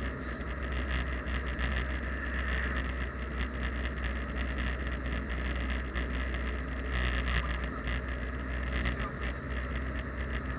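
Car driving at steady speed, heard from inside the cabin: a constant low rumble of engine and road with tyre noise over it.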